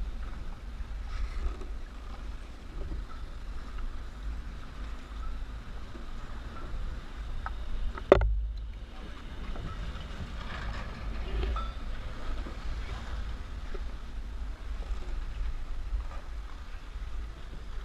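A steady low rumble with faint scattered knocks, and one sharp, loud knock about eight seconds in.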